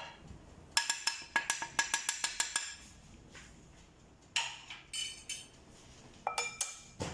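Kitchen utensil clinking repeatedly against a ringing bowl while spices are added and mixed: a quick run of about a dozen clinks, then two shorter groups near the end.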